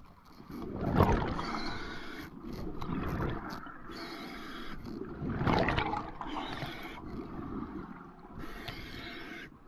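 A diver breathing underwater through a compressor-fed (hookah) regulator: exhaled air gurgles out as bubbles in repeated surges every two to three seconds, with a rushing hiss between them.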